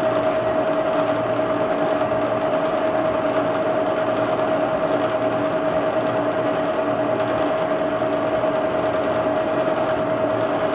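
Milling machine spindle running a small chamfer cutter fast, cutting the back edge of a splined motorbike shaft as the shaft is turned on an indexer. A steady machine run with one constant high tone over an even hiss.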